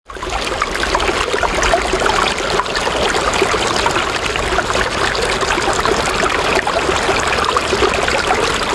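Steady trickling, bubbling noise like running water, dense with small crackles, which starts abruptly and cuts off suddenly at the end.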